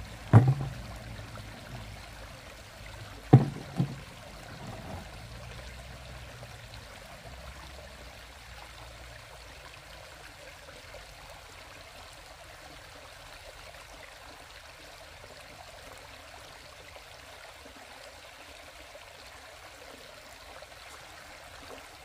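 Shallow stream running over rocks, a steady rush of water. Near the start come two sharp knocks about three seconds apart, as a stone is dropped into a bottle fish trap and the trap is handled in the water.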